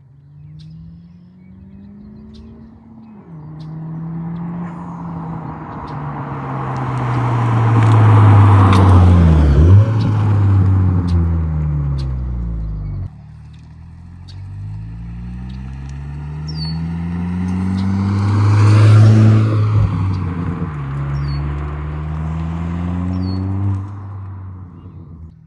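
Honda Civic Si's 1.5-litre turbo four-cylinder through a MAPerformance cat-back exhaust, climbing in revs and easing off in two loud pulls. The first cuts off suddenly about halfway through and the second builds again.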